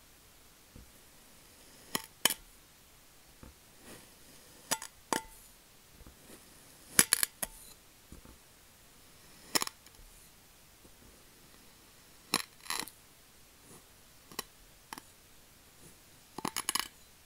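Thin metal rods pressing down through kinetic sand, their tips clicking and clinking against the glass plate beneath. Sharp single clicks come every second or two, with quick runs of several about seven seconds in and near the end.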